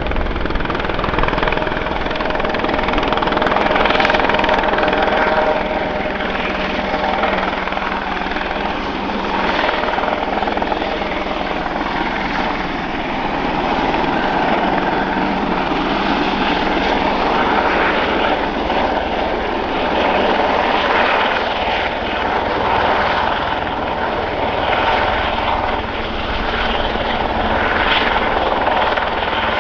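Eurocopter EC120B Colibri helicopter hover-taxiing low: its turboshaft engine, main rotor and Fenestron ducted tail rotor running steadily, the sound swelling and easing slowly as it moves past.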